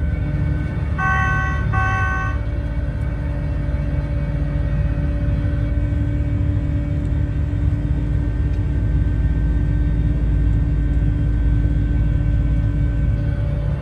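Combine harvester's engine and drive running steadily at road speed, with a heavy low rumble. Two short electronic beeps sound about a second in.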